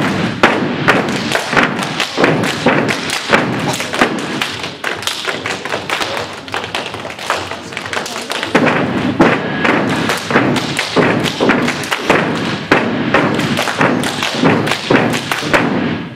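A step team stomping and clapping in unison: a fast, loud, rhythmic run of foot stomps and hand claps that cuts off suddenly near the end as the routine stops.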